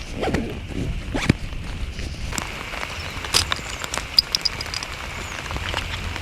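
Rain falling steadily, with close rustling and a few sharp clicks and knocks from handling nearby.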